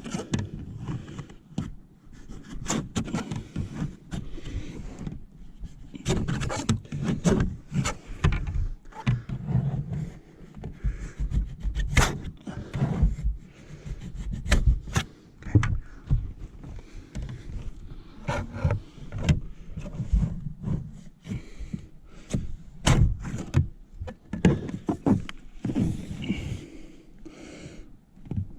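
A squeegee rubbing and scraping in irregular strokes over wet tint film on a car's rear window, with frequent small knocks, as the film is worked down and the water pushed out.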